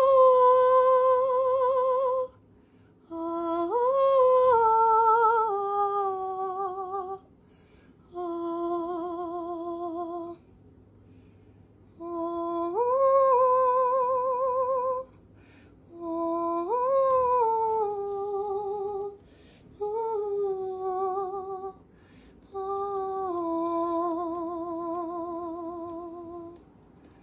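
A woman singing long wordless "oh" notes with vibrato, in about seven held phrases with short breaths between them, the pitch swelling up then easing down within each phrase.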